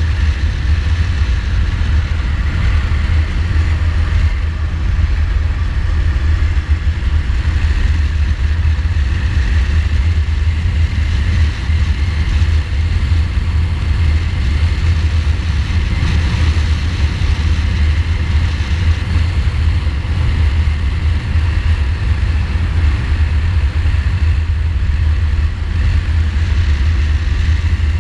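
2015 Ducati Multistrada's L-twin engine running at a steady cruise of about 40 to 45 mph, under a heavy low rumble of wind on the bike-mounted microphone.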